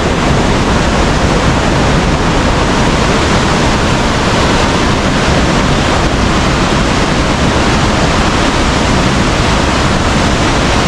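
Waterfall of over 50 metres, a loud, steady rush of falling water.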